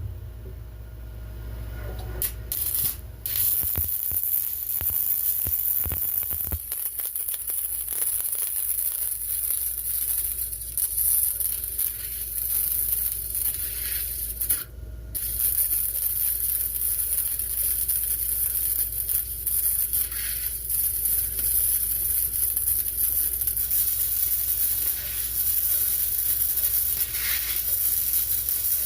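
Arc welding on a go-kart motor mount: a steady crackling sizzle from the arc as a bead is run. It stops briefly about halfway through and then starts again.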